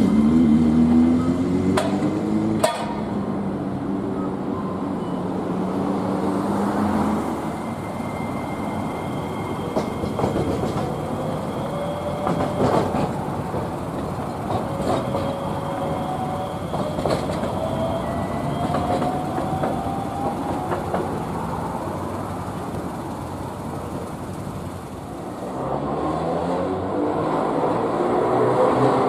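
Iyotetsu streetcars: a red 5000-series low-floor tram's electric motors whine as it draws past, with a few sharp rail clicks at first. Then comes a quieter stretch of street noise with a slow rising whine. About three and a half seconds before the end, an old Moha 50 tram's motors start whining, getting louder as it comes up.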